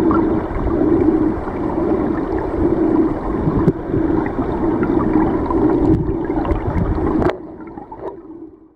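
Underwater rush and gurgle of flowing river water picked up by a submerged camera, with scattered sharp clicks. It drops suddenly about seven seconds in and fades out to silence.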